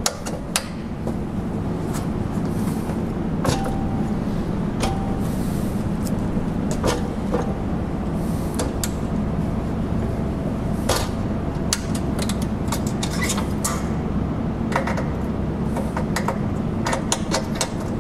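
Metal clicks and knocks from an M3M 12.7 mm heavy machine gun and its helicopter door mount being swung through traverse and elevation, to check that the weapon sits firmly in the cradle. A steady low hum runs underneath.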